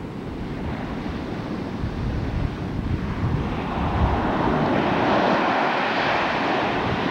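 Ocean surf breaking on a sand beach: a wave builds and rushes up the shore, swelling about three seconds in. Wind rumbles on the camcorder microphone throughout.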